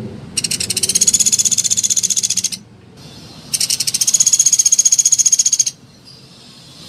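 Sunda pygmy woodpecker calling: two rapid trills, each about two seconds long, with a short pause between them.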